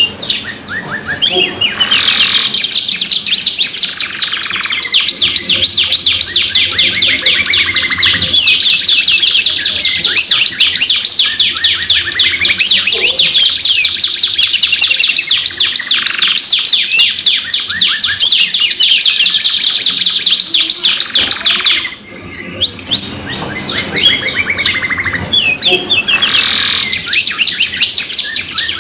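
Domestic canaries singing, a continuous run of fast, rolling high trills and chirps. The song breaks off briefly about three-quarters of the way through, then starts again.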